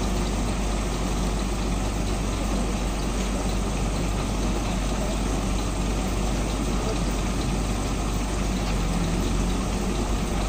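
Heavy truck's diesel engine idling steadily, a constant low drone with no revving or change.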